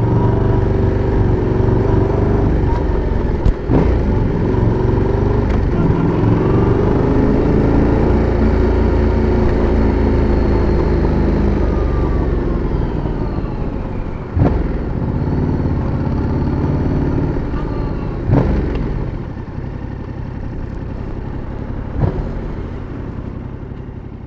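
Yamaha MT-07's parallel-twin engine and exhaust running while riding, the pitch climbing and dropping back as the bike accelerates and slows. Four short sharp cracks stand out along the way, the first the loudest, and the engine sound eases down near the end.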